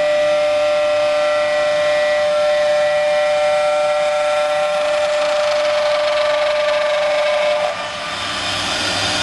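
CNC router spindle whining at a steady pitch as its bit cuts a curved wooden chair part. About three-quarters of the way through, the steady whine fades and a rougher, noisier cutting sound takes over.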